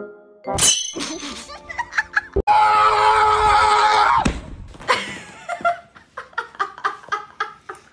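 French bulldog giving a long, loud scream-like cry with its mouth wide open while its head is held and stroked, followed by a quick run of short cries.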